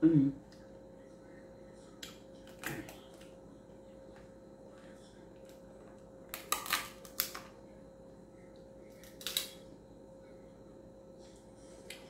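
Crab leg shells cracking and snapping as they are bitten and pulled apart by hand, in a few sharp bursts with small clicks between, the loudest cluster about six to seven seconds in. A short hummed 'mm' right at the start.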